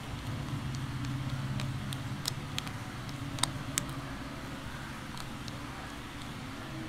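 Flat-blade screwdriver tightening the hose clamp that holds a mushroom air filter on a carburettor: a handful of small sharp clicks, the clearest between about two and four seconds in, over a steady low hum.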